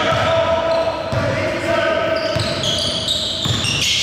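A basketball bouncing repeatedly on the court during a game, a thump about every half second, with held tones that shift in pitch over it.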